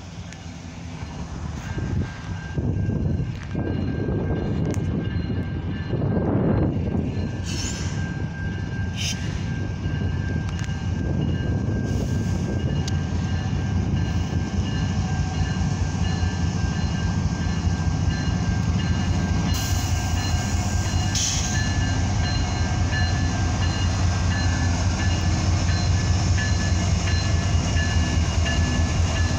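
Two GE ET44AC diesel-electric locomotives, each with a V12 diesel engine, running under power as they approach and pass close by. The sound grows louder over the first few seconds, then settles into a steady, loud drone.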